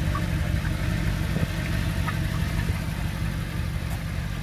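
A car engine idling steadily: a low, even rumble.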